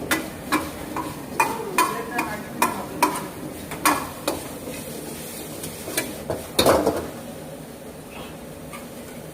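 Mutton frying in a pan, stirred with a metal utensil that knocks and scrapes against the pan about a dozen times, with a steady sizzle underneath. For the last couple of seconds only the sizzle goes on.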